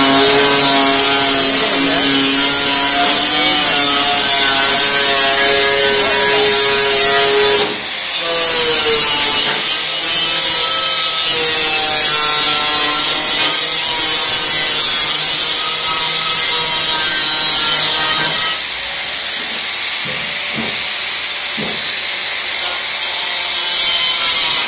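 Handheld angle grinder with an abrasive disc grinding along the edge of a rusty steel sheet, its motor whine shifting in pitch as the load changes. It dips briefly about eight seconds in and runs quieter for the last six seconds.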